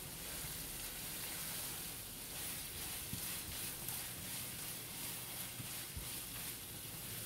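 Silicone spatula stirring and scraping a thick coconut and condensed-milk mixture around a non-stick frying pan in repeated strokes, over a low, steady sizzle of the mixture roasting in ghee.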